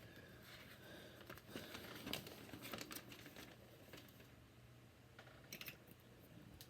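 Faint rustling and scattered light clicks of plastic Lego Technic pieces being handled and fitted.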